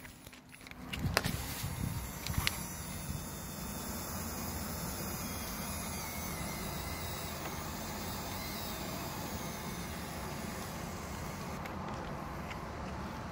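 Small electric RC motor running steadily while the speedboat is hauled up its trailer out of the water, after a few knocks in the first couple of seconds.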